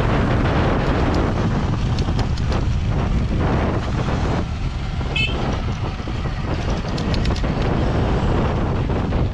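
Loud, steady wind noise on the microphone of a rider on an electric dirt bike, with scattered clicks and knocks from the bike over the rough dirt and gravel trail. A short squeak about five seconds in.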